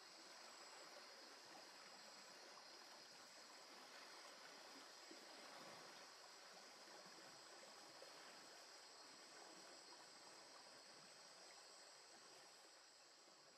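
Faint, steady rush of flowing river water, with a continuous high-pitched insect drone over it; it fades toward the end.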